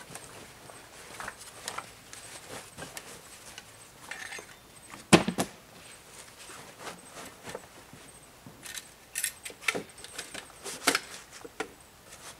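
Camp gear being handled and packed by hand: scattered clicks, clinks and rustles, with one loud knock about five seconds in.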